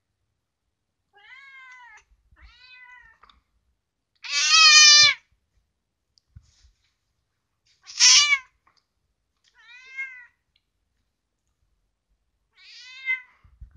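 House cat meowing six times, each call arching up and down in pitch, the loudest and longest about four seconds in.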